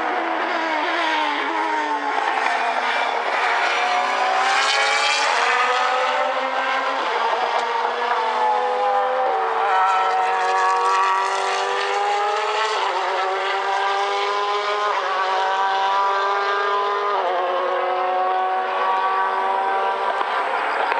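Racing car engines at full throttle, pitch climbing through each gear and dropping sharply at every upshift, several gear changes in a row.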